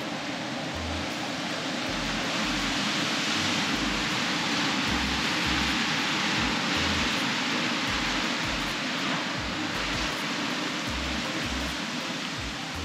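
Pacific surf breaking and foaming over a rocky ledge, a steady rushing wash that swells through the middle and eases off near the end.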